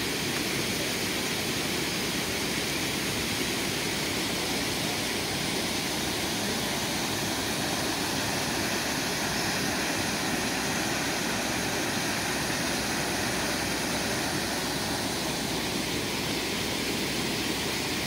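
Water rushing over a small waterfall, a steady even rush with no change in level.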